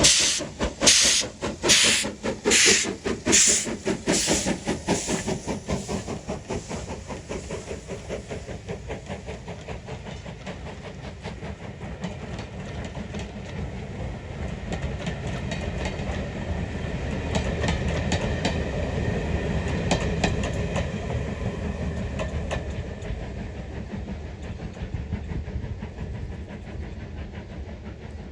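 Steam locomotive pulling away, its exhaust beats loud at first, about one a second, then quickening and fading over the first several seconds. The rumble and rail clicks of the train follow, swelling about two-thirds of the way through and fading near the end.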